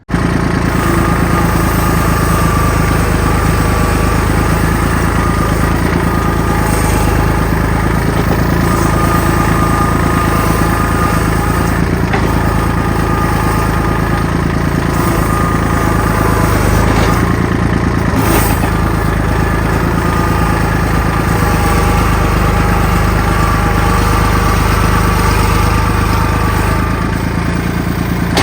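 Kubota L2501 tractor's three-cylinder diesel engine running steadily while the front-loader forks work a log, with one sharp knock a little past the middle.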